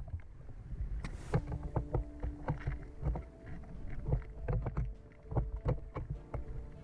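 Underwater sound picked up through an action camera's housing: a low rumble of moving water with many scattered clicks and knocks and a few faint brief hums.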